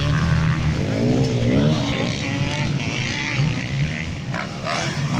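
Motocross bikes' engines running hard on the track, their pitch rising and falling as the riders open and close the throttle and shift gears, strongest about a second in.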